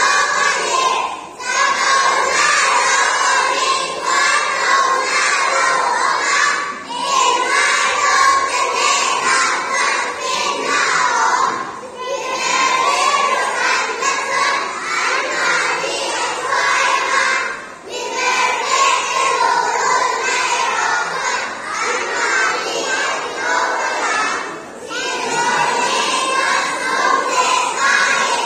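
A group of young children reciting a Bible passage (Proverbs 11:1–5) aloud together in Mizo, loud, in unison, in long phrases with a brief pause for breath about every five or six seconds.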